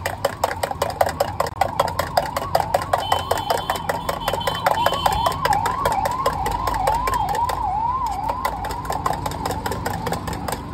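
A steel spoon whisking egg mixture in a steel mug: rapid clinking, several strikes a second, with a metallic ring whose pitch wavers up and down with the strokes.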